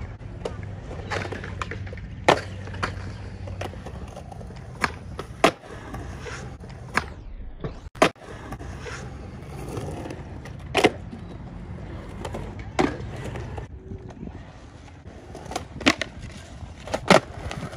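Skateboard wheels rolling on concrete, with about ten sharp clacks from tail pops, board slides on a ledge and a handrail, and landings.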